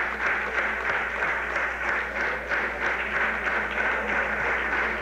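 Audience applauding: many people clapping together in a steady, dense ovation.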